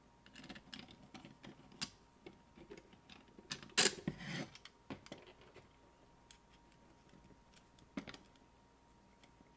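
Light clicks and knocks of 3D-printed PLA plastic scissor arms being handled and fitted together on a tabletop, with a louder clattering knock about four seconds in and another near the end.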